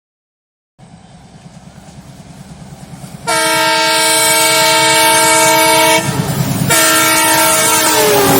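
WDM3A diesel locomotive approaching at speed, its engine rumble growing louder. It then sounds its horn in a long blast about three seconds in, pauses briefly, and blasts again. The horn's pitch drops near the end as the locomotive passes.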